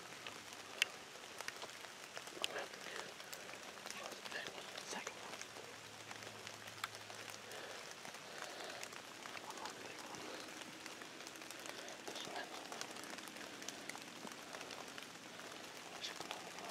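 Light rain falling on leaves and branches: a faint steady patter with scattered drip ticks, one sharper tick about a second in.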